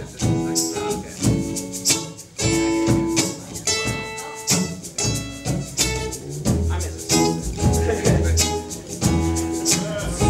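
Live band intro: acoustic guitar strumming chords to a steady beat, with hand percussion keeping time. An upright bass comes in about six and a half seconds in.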